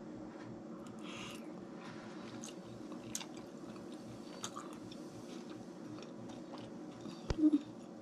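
A person chewing a forkful of baked escargot under melted cheese: soft, wet chewing and small clicking mouth sounds, with a short louder hum near the end.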